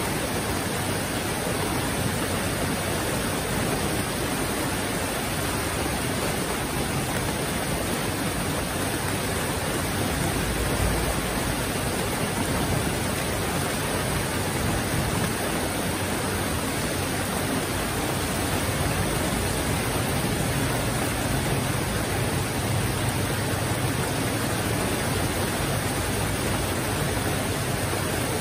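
Heavy rain falling steadily, an even, dense hiss that never lets up.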